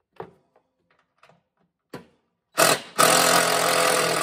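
A few light clicks of a bit being fitted to a Torx bolt head, then a cordless power driver runs in a short burst and again steadily for over a second, backing out a T30 Torx bolt from the mower deck's plastic shroud. Its battery is running low.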